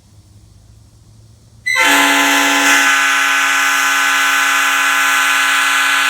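A five-chime air train horn blowing one long blast: a loud full chord that starts abruptly about a second and a half in and holds steady. Before it there is only a faint low hum.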